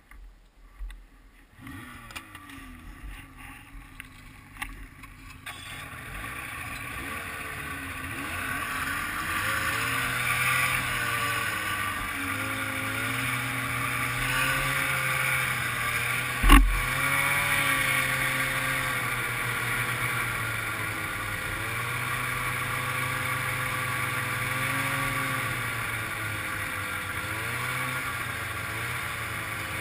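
1995 Ski-Doo Grand Touring snowmobile's two-stroke engine pulling away about two seconds in and then running along the trail, its pitch rising and falling with the throttle. A single sharp thump about halfway through.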